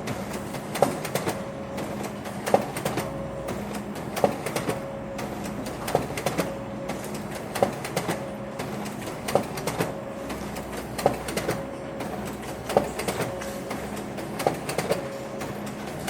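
Office printer running: a sharp click about every second and a half to two seconds, each followed by a short whirr, over a steady low hum.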